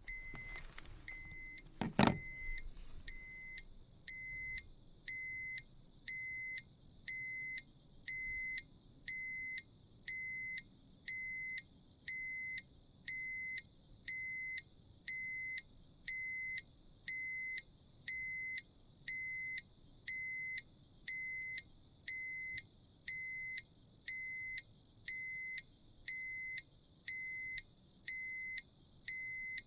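Dosimeter alarm: a steady high electronic tone with a lower beep pulsing on and off about once a second. A single sharp click comes about two seconds in.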